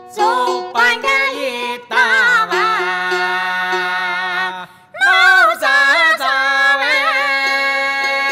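A woman singing a Hakka mountain song in long, wavering held notes, accompanied by a plucked Chinese lute and the sharp clicks of bamboo clappers.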